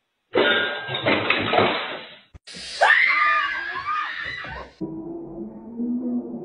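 A woman screams in fright for about two seconds while a cat leaps onto her head. The scream comes after an earlier noisy burst and is followed by quieter, low steady tones.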